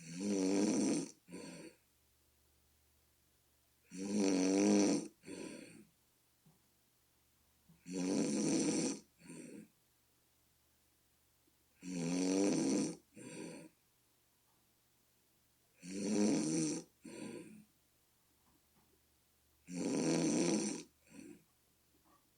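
A sleeping person snoring steadily, one snore about every four seconds, six in all; each is a long, pitched, rattling snore of about a second followed by a shorter, softer one. The owner likens the snoring to a bullfrog.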